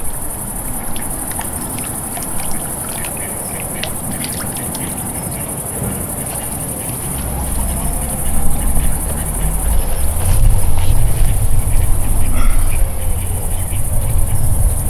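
Crickets chirring steadily and high-pitched, with a few faint clicks in the first seconds. From about eight seconds in, a louder, uneven low rumble of wind on the microphone comes over it.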